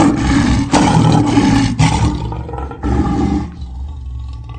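Loud, rough roaring calls of a large animal: a long call, then a shorter one about three seconds in, trailing off.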